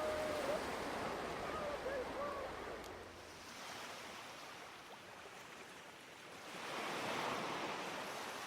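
Sea surf washing on a beach in a steady hiss, with a wave swelling in about two-thirds of the way through.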